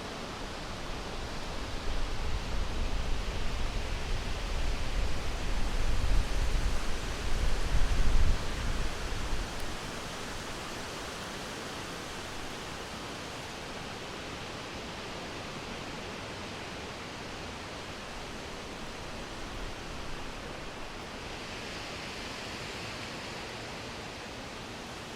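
Wind blowing through summer forest trees, a steady rushing of leaves. A stronger gust in the first third swells louder, with a deep rumble, before it settles back to an even rush.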